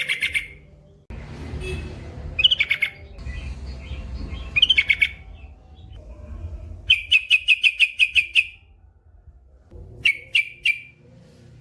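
Yellow-vented bulbul (trucukan) singing in bursts of quick, bubbly notes, with a longer rapid run of about ten notes past the middle and a short three-note phrase near the end. A low rumbling noise sits under the song in the first half.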